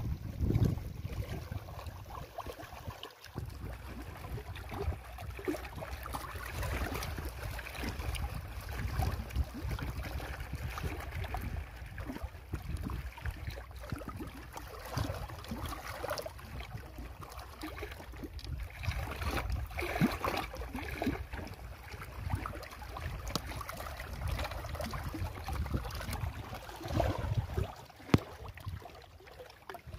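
Lake water lapping and splashing against shoreline rocks, with wind rumbling on the microphone.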